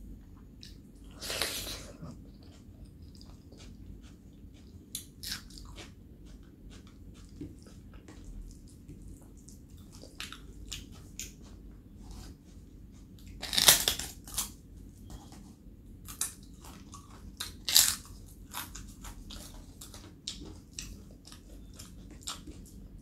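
Close-miked eating: steady chewing with small wet mouth clicks, broken by three loud crunchy bites, about a second and a half in, near the middle and a few seconds later, from crisp fried papad.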